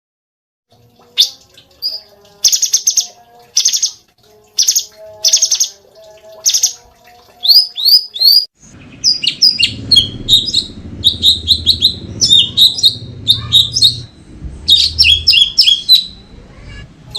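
Cucak cungkok songbird singing. First comes a run of separate harsh, buzzy notes about a second apart, then from about halfway a fast chattering stream of sharp, downward-gliding whistles over a low rumble.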